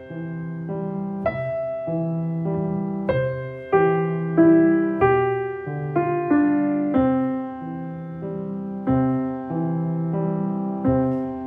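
Background music played on piano: single notes and chords struck about once a second, each left to ring out and fade.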